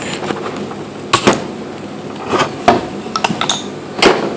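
A few sharp clicks and knocks, spaced irregularly, as a small screwdriver works the tab of the plastic electrical connector on a Ford 5R110W transmission valve body to turn and release it.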